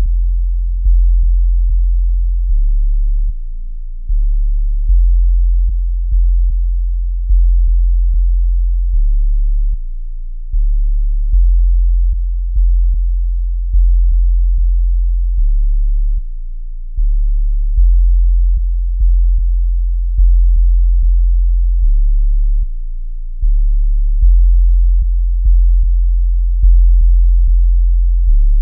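Minimal electronic dub music made of deep sub-bass sine tones, pulsing in a steady rhythm, each pulse starting sharply and fading away. Nothing is heard above the very low bass register apart from faint ticks where each pulse begins.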